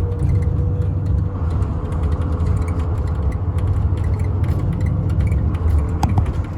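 Tourist railroad train making a steady low drone with scattered clicks and rattles, and a brief high squeak about six seconds in.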